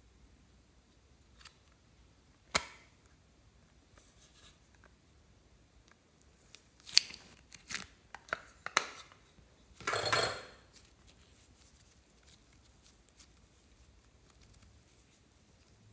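Hard plastic case being handled: a sharp click about two and a half seconds in as its flip lid is opened, then a cluster of clicks and snaps a few seconds later, and a brief rustling scrape about ten seconds in as soft clay is pulled from it.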